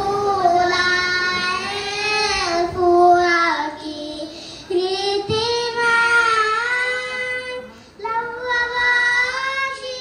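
A group of children singing a madhaha, a Maldivian devotional song in praise of the Prophet, unaccompanied, in long held, gliding phrases with short breaks between them.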